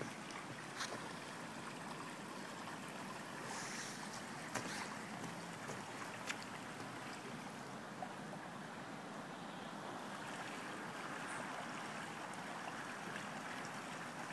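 Creek water rushing steadily below, with a few light clicks scattered through.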